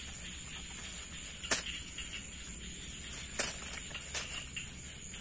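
Thin plastic bag rustling and crinkling as speared fish are pushed off a spear's prongs into it, with two sharp crackles, one about a second and a half in and another about three and a half seconds in, and a smaller one just after.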